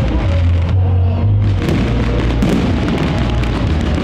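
Festive fireworks salute: repeated bangs of bursting shells with crackling, over music playing at the same time.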